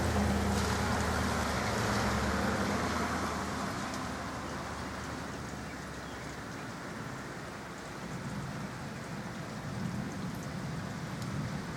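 Steady rain falling during a thunderstorm. A low rumble is heard in the first few seconds and fades away.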